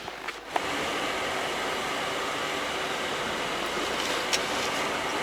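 A Lada Niva's engine running at steady, high revs, which points to the car being driven hard to get out of deep snow. The sound sets in about half a second in and holds evenly, with a small click near the end.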